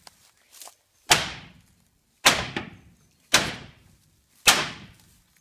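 Loud hammer blows, four heavy strikes about a second apart, each ringing out briefly, with a couple of lighter knocks near the start.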